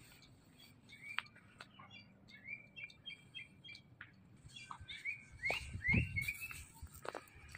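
Small songbirds chirping: a run of short, quick chirps and whistled notes from more than one bird, busiest in the second half, with a soft low bump about six seconds in.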